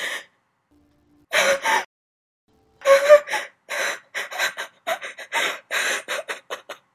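A woman crying without words: breathy sobs, a few spaced ones at first, then a quick run of short sobs, about four a second, through the second half.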